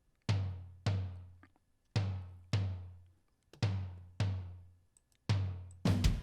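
Tom-tom drum played back alone: seven separate strikes, loosely in pairs, each a low, pitched boom that dies away within about half a second. Near the end a fast, loud run of drum hits begins.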